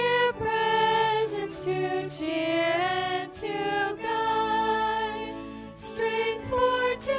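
Church music: a sung melody in held notes over a steady low accompaniment.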